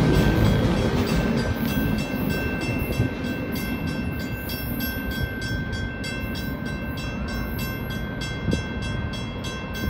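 Freight train's rear cars rolling away on the track, the low rumble fading as they recede. A steady high ringing tone runs above it.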